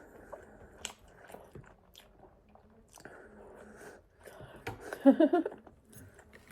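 A person chewing a mouthful of pizza with small wet clicks, and a louder burst of mouth noise about five seconds in.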